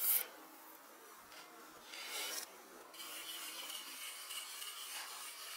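A knife blade scraping along a wooden log, a rough rasping: a short scrape at the start, another about two seconds in, then steady scraping from about halfway through.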